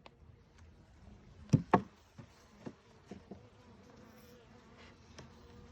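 Honeybees buzzing around an open hive, a faint steady hum; the colony is agitated. Two sharp knocks come about a second and a half in, with a few lighter clicks after.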